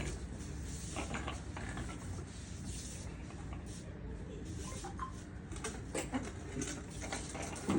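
A child's bicycle clicking and creaking as it is ridden, with irregular ticks from its moving parts.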